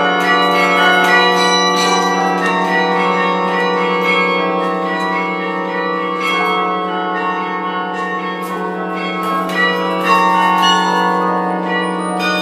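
Harkness Tower carillon played by hand and foot from its baton console: many bell notes struck in quick succession, each ringing on over the next, with a low bell note held underneath throughout.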